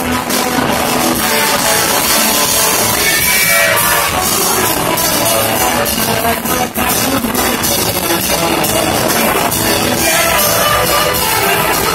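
A live band playing loudly, with electric guitars over a drum kit.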